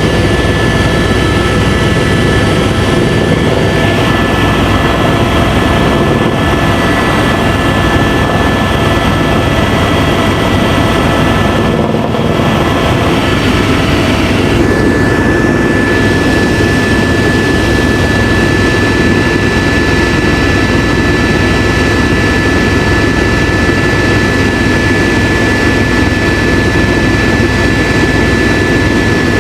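Helicopter in flight: loud, steady rotor and turbine noise with a constant high whine.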